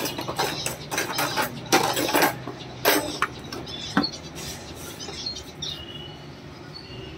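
Clicks and clattering knocks from a plastic spray bottle being handled close up. They come thick for about the first four and a half seconds, then fewer and quieter.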